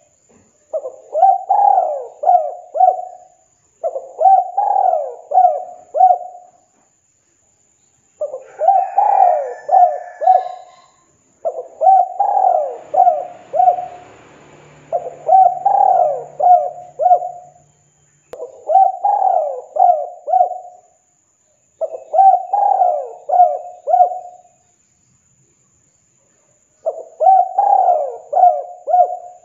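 Spotted dove cooing: eight phrases of four or five coos each, one phrase about every three seconds, with a longer pause near the end before the last phrase.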